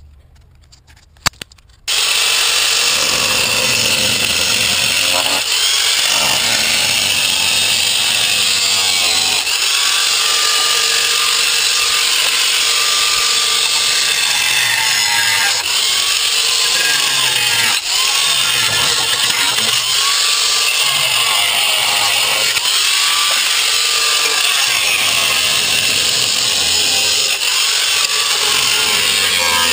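Handheld power tool cutting into car body metal. It starts abruptly about two seconds in and runs loud and steady, its pitch dipping and recovering again and again as it bites.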